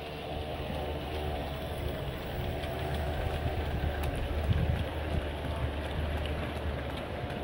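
O gauge model N7 tank locomotive and a train of mineral wagons running past on the track: a low rumble of wheels with clicks over rail joints, and a motor-and-gearbox whine that fades after the first few seconds as the locomotive moves on.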